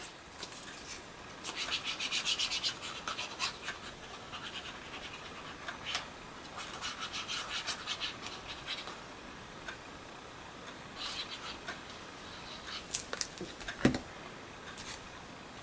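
Paper and cardstock pieces being handled, glued and pressed together: soft, scratchy rustling and rubbing in several short spells, with a few light taps.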